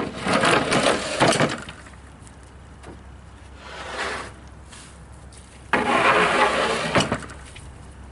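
Rough-sawn pine boards scraping and clattering as they are slid and set down onto a welded metal trailer, in three spells with sharp knocks where the boards land.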